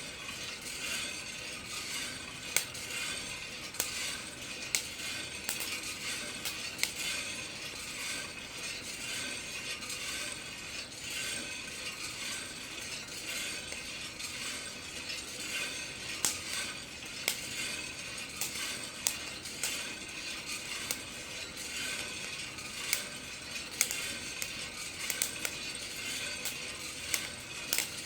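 Kaldi home coffee roaster's motorized drum turning with a steady mechanical rattle, while the roasting coffee beans inside crack with sharp, irregular pops, often several a second apart.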